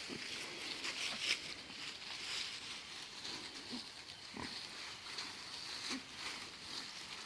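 Pigs grunting a few times at close range, with short rustles and crackles among them, over a steady high-pitched background hiss.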